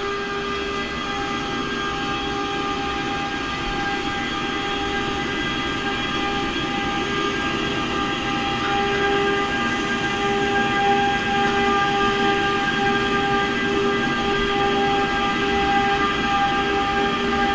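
Class 186 Bombardier Traxx electric locomotive moving slowly past with a tank-container freight train. It gives a steady hum of several fixed tones over a low rumble of wheels on rail, growing gradually louder.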